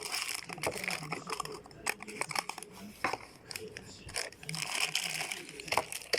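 Crinkling, crackling and small clicks of a toy car's packaging being handled and opened, in quick irregular bursts.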